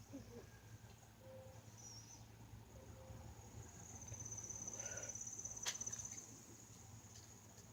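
Quiet outdoor background with a faint, high-pitched insect trill that swells for a few seconds midway, and one short click about six seconds in.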